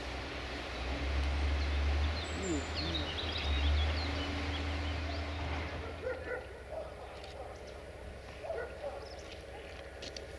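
Outdoor ambience: a steady low rumble, loudest through the first half, with birds chirping, more clearly in the quieter second half.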